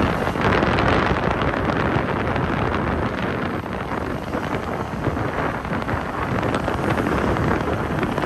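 Steady rush of wind buffeting the microphone, mixed with road noise from a vehicle moving along a road. The noise swells briefly in the first second as a car passes close by.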